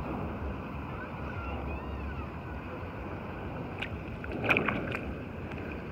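Steady wind and lapping water on the microphone. About four and a half seconds in comes a short splash with a few small clicks, as a small croaker is released by hand into the water.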